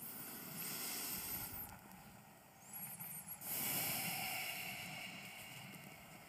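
Faint rustling and handling noise, in two swells: one in the first second and a half, and a louder one from about three and a half seconds in, with a few thin high squeaks between them.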